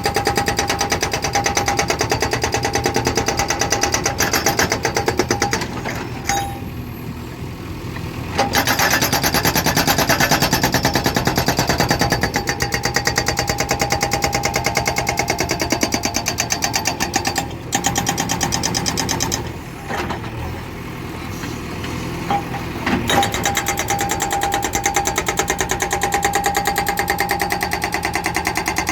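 Bulldozer's diesel engine running with a rapid, even knock and a steady whine. It drops quieter twice, for a few seconds each, about six and twenty seconds in.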